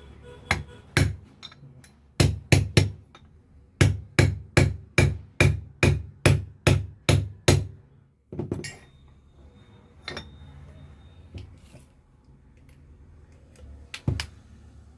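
Hammer striking metal. A couple of blows, then three quick ones, then a steady run of about ten even blows at roughly three a second, then a few scattered blows.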